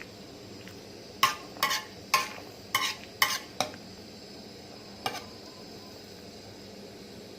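A metal utensil clinking against cookware while the soup is stirred or served: six quick ringing clinks in about two and a half seconds, then one more about five seconds in, over a faint steady hiss.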